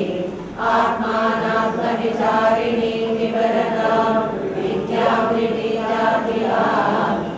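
A group of women chanting a devotional hymn together in unison, in phrases of a few seconds with short pauses between them.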